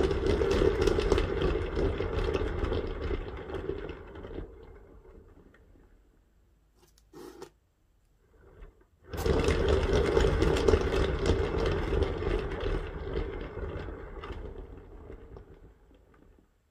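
Lazy susan turntable spinning on its bearing, twice. Each spin starts suddenly, then fades slowly as the turntable coasts to a stop. The second spin begins about nine seconds in.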